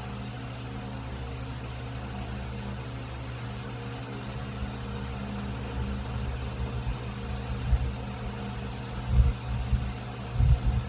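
Steady low machine hum with a few fixed tones, and faint short high bird chirps every second or so. From about seven seconds in, irregular low thumps grow louder toward the end.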